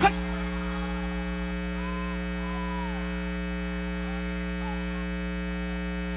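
Steady electrical mains hum with many overtones, unchanging throughout, with a couple of faint short voice-like tones about two seconds in.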